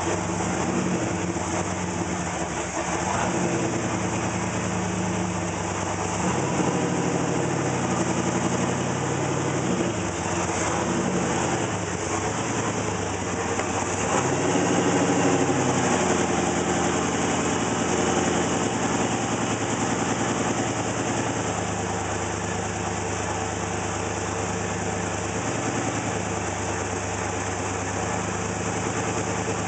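A 301 V8 engine idling roughly, its speed wavering up and back down several times rather than holding steady.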